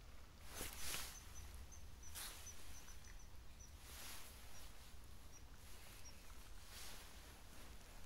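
Faint outdoor ambience: a low rumble, four brief soft swishes, and a run of short, high, thin peeps at one pitch from a small bird during the first half.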